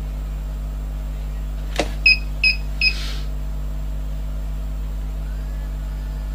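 Steady low hum of the converted UPS's inverter running off its battery pack under about 130 W load. About two seconds in comes a click, then three short high electronic beeps less than half a second apart.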